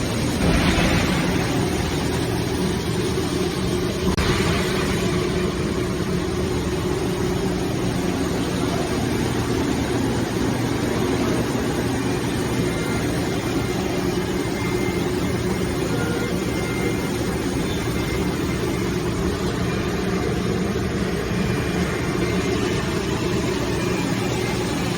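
Steady hum of running industrial machinery, even and unbroken, with a low drone.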